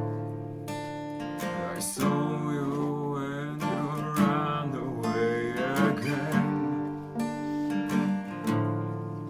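Acoustic guitars strumming and picking chords as a live band plays into a single microphone, with a wavering melody line over them from about two seconds in.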